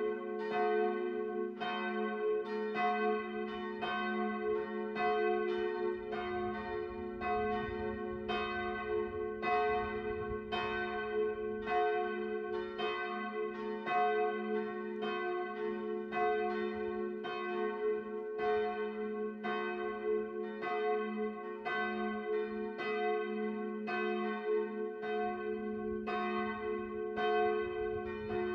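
Church bells ringing a steady peal: regular strikes, about three every two seconds, over a lingering hum from the bells.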